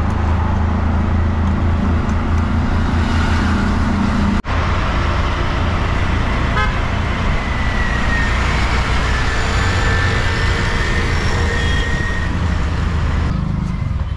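Auto-rickshaw engine running steadily under way through busy city traffic, with road noise and horns sounding in the traffic. The sound cuts out for an instant about four seconds in.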